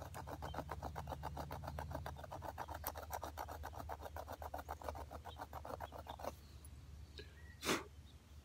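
A sharp flint shard scraping wood in rapid, even strokes, several a second, stopping about six seconds in. Near the end there is one short, louder sound.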